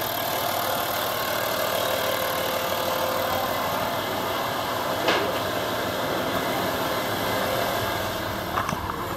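Audi 2.5 TDI AKE V6 turbodiesel running steadily at raised revs, about 3000 rpm. There is one short knock about five seconds in, and the sound drops slightly in level near the end.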